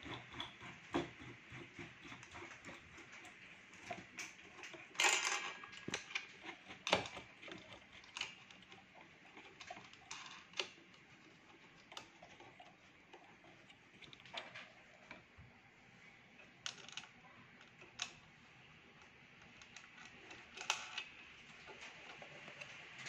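Scattered clicks, taps and small knocks of screws, springs and hard plastic housing being handled and fitted by hand while a Freesub P8001X heat press is assembled. The loudest is a short clatter about five seconds in.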